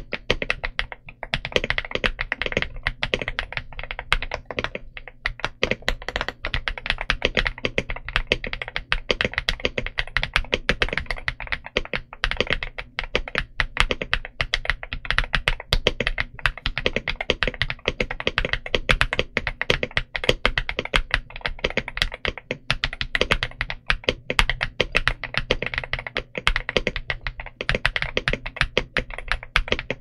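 Continuous fast typing on a stock VTER K75 mechanical keyboard with VTER Bloom linear switches and DS PBT OEM-profile keycaps, close-miked: a dense, unbroken stream of key strokes.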